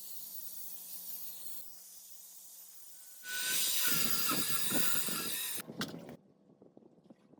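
A compressed-air jet hissing steadily, then getting louder and rougher with sharp clatter about three seconds in, and cutting off a little after six seconds; a few light knocks follow.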